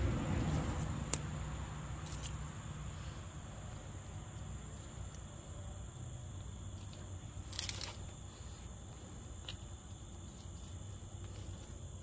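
Quiet outdoor background: a steady, faint, high-pitched insect drone over a low rumble, with a few faint clicks, one about a second in, one about two seconds in and one past the middle.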